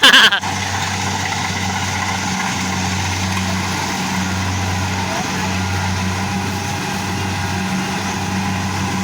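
An engine running steadily with a low, even hum. A brief loud shout comes right at the start.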